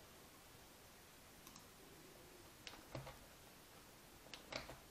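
Near-silent room tone with a handful of soft, scattered clicks from a computer keyboard, the sharpest about three seconds in and two close together near the end.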